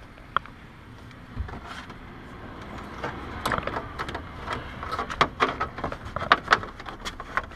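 Hands working behind plastic body panels and a fender liner, feeding a light wire down from the top: a sharp click near the start, then about 3 s in a busy run of rustling, scraping and small plastic clicks and knocks.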